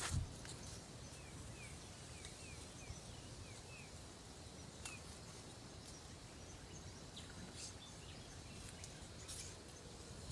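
Rural outdoor ambience: a steady low background hiss with a run of short, quick bird chirps in the first few seconds. A brief knock sounds right at the start.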